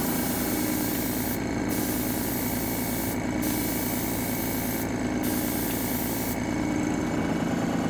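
Badger 350 single-action airbrush with a heavy-duty tip hissing as it sprays aquatint resist, in four passes split by short breaks, stopping near the end. Under it the small air compressor that feeds it hums steadily.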